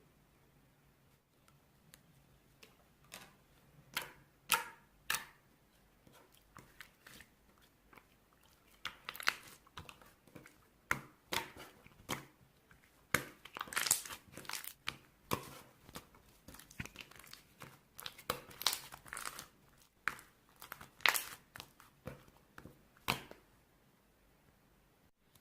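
Crunchy slime being squeezed and pressed by hand, giving irregular crackles and pops, thickest in the middle and near the end.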